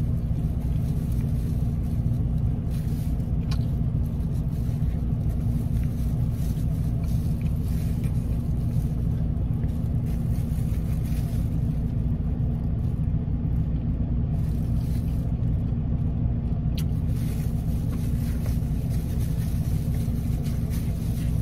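Car engine idling, heard inside the closed cabin as a steady low rumble with a faint steady hum on top. A few faint clicks come through it.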